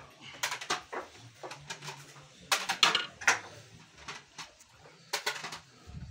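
Perforated metal skimmer ladle scraping and knocking against the sides of a large aluminium pot as cooked rice is scooped and stirred: irregular clicks and scrapes, a cluster of the loudest strokes a little past halfway.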